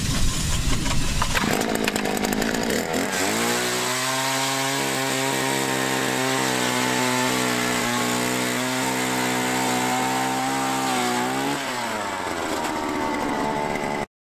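Power ice auger's engine revving up about three seconds in, running steadily at high speed as the auger bores through the ice, then winding down near the end. A rough, noisy rush comes before it in the first second or so.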